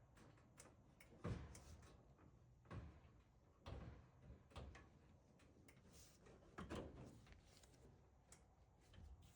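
A few faint, scattered knocks and clunks over quiet room tone, the clearest about a second in and near the middle.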